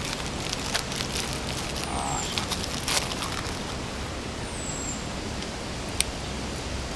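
A bird calling over and over, a short high whistle that falls in pitch, repeated every two and a half seconds or so, over steady outdoor background noise. A few sharp clicks come in between, the sharpest about six seconds in.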